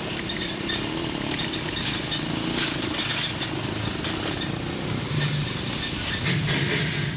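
Small motorcycle engine running and coming closer, growing a little louder toward the end.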